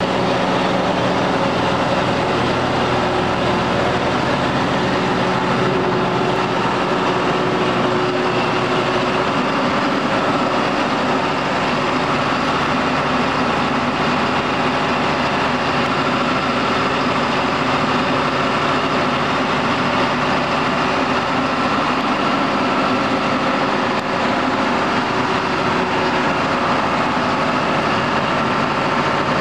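John Deere 9600 combine harvester running steadily while harvesting, its diesel engine and threshing machinery giving a continuous, dense mechanical drone.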